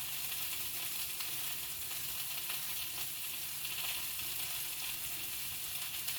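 Boneless, skinless chicken thigh sizzling in a frying pan: a steady crackling sizzle with no let-up, as the meat browns.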